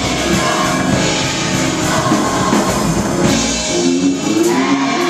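Youth gospel choir singing with a live band accompaniment, a drum kit keeping the beat.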